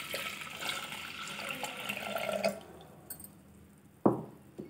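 Water poured from a plastic jug into an aluminium pressure cooker onto soaked moong dal, splashing for about two and a half seconds and then stopping. A single short knock about four seconds in.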